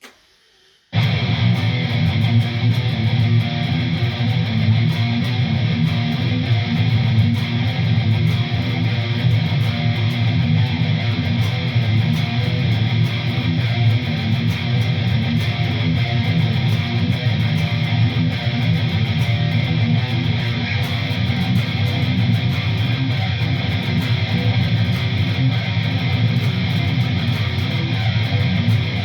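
ESP LTD Arrow Black Metal electric guitar with a single EMG 81 pickup, played through a Line 6 HD500X and Rocktron Velocity 300 into a Laney Ironheart cabinet, heavily distorted and playing a continuous death-metal rhythm riff. It starts about a second in, after a brief silence.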